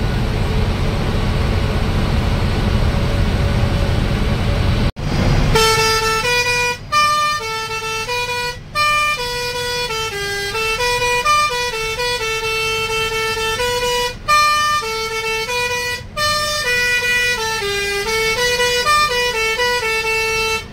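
Steady bus-cabin engine and road rumble for about five seconds. Then, after a sudden break, a tune in a single horn-like tone, stepping up and down between notes and pausing briefly a few times.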